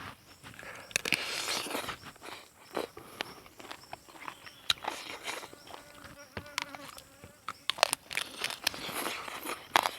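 Close-up eating sounds: chewing and biting into food, with irregular crunches, clicks and smacks. A faint buzzing hum comes in briefly near the middle.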